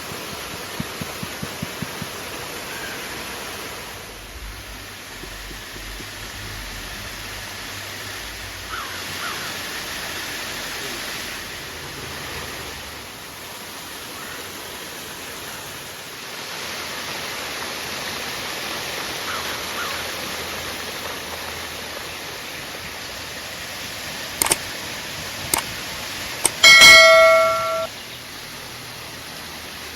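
Steady rush of a river. Near the end come a few sharp clicks, then a loud ringing clank that holds several bell-like tones for about a second.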